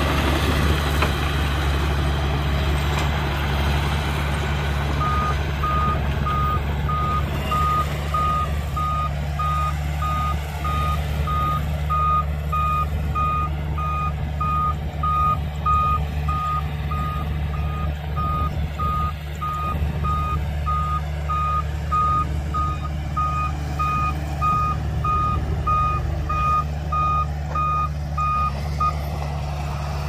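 Reversing alarm of a heavy earthmoving vehicle, a dump truck or bulldozer, beeping evenly at about three beeps every two seconds. It starts about five seconds in and stops just before the end, over a diesel engine running steadily.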